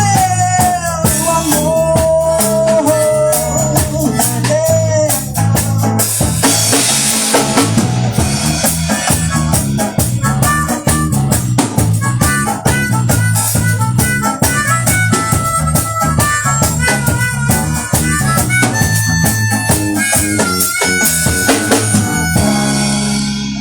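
Live band playing an instrumental passage: harmonica leading over drum kit, bass guitar and acoustic guitar. Near the end the band hits a final held chord and the sound fades out as the song ends.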